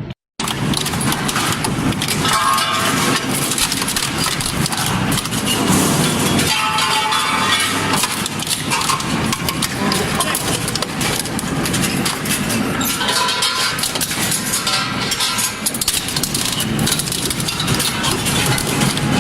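Industrial shredding machine chewing through material: a loud, dense grinding and crunching, with higher squealing tones that come and go.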